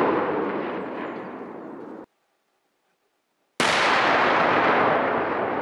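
Demolition charges detonating: the fading rumble of one blast cuts off abruptly about two seconds in, and after a short silence a second explosion goes off with a sharp onset about three and a half seconds in, its rumble slowly dying away.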